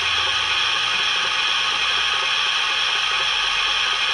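Sanders sound effect from the Hornby Class 31's factory-fitted DCC sound decoder: a steady hiss of air-blown sand, played through the model locomotive's small speaker.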